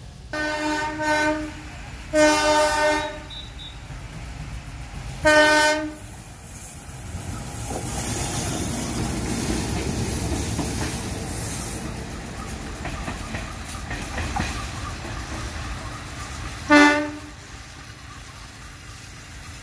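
Train horn sounding four chord-like blasts: three within the first six seconds and a short one near the end. In between, the train passes close by, its wheels and running gear rumbling loudest around the middle.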